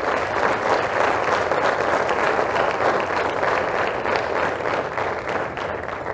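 Audience applause, many people clapping at once, fading slightly near the end.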